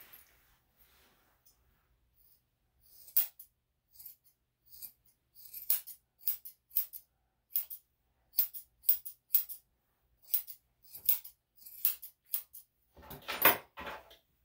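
Curved grooming scissors snipping the long ear hair of a dog, short sharp metallic snips at an uneven pace, about one or two a second. Near the end comes a brief, louder burst of rustling and clattering.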